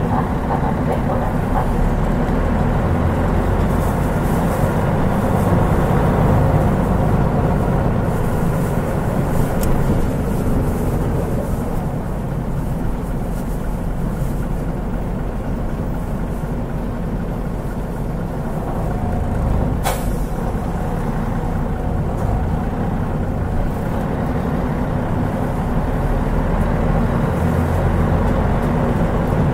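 Mitsubishi Fuso Aero Star city bus (KL-MP37JK) running, its turbocharged 6M70 diesel engine giving a steady low drone that eases off in the middle and builds again. A short sharp hiss or click cuts through about twenty seconds in.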